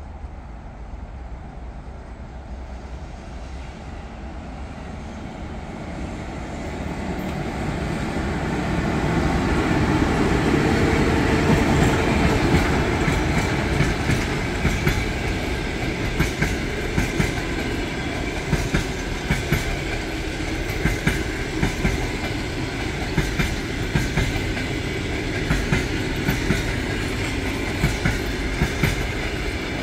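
ChS7 electric locomotive hauling a passenger train past at speed. The rumble builds over the first ten seconds or so as the locomotive draws level. Then the coaches roll by with a steady rumble and a regular clickety-clack of wheels over rail joints, about one knock a second.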